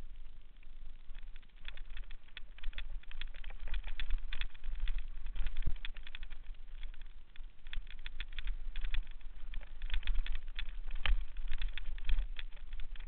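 Mountain bike running fast over a loose, rocky trail: a continuous irregular rattle of clicks and knocks as the tyres and frame hit stones, over a low wind rumble on the microphone.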